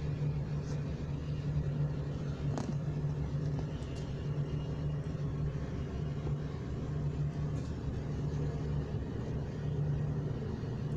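Steady low mechanical hum with a rumble underneath, unchanging throughout, and one brief click about two and a half seconds in.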